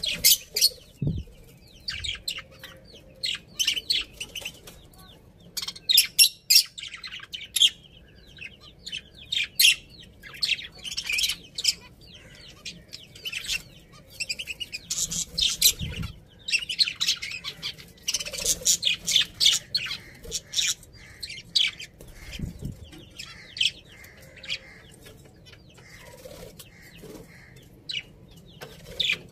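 Budgerigars chirping and chattering: rapid clusters of short, high chirps that come in bursts on and off, with a few brief low thuds among them.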